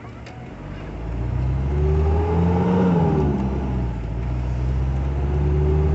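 Motorhome engine accelerating as it pulls onto a busy road. Its pitch rises, drops at a gear change about three seconds in, then rises again.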